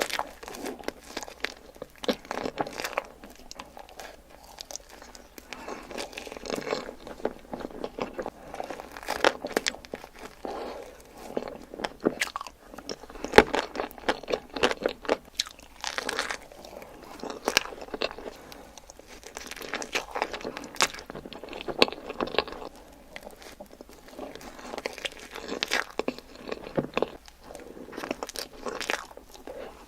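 Mouth sounds of someone eating profiteroles: repeated bites and chewing, with many sharp, irregular crunchy clicks.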